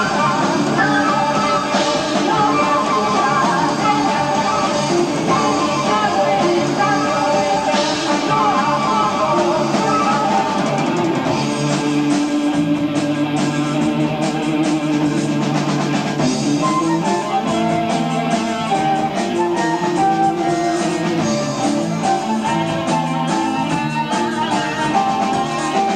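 Live progressive rock band playing: electric guitar, bass, drums and keyboards in a continuous passage, heard through an amateur tape recording.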